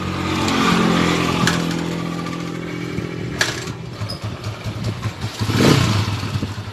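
Honda TMX155 single-cylinder motorcycle engine running and being revved, rising in speed about half a second in and again briefly near the end, settling into an even putter. Two sharp clicks sound along the way.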